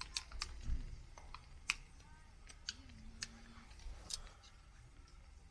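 About half a dozen scattered sharp clicks and short scrapes, irregularly spaced, from handling of fire-lighting gear and kindling.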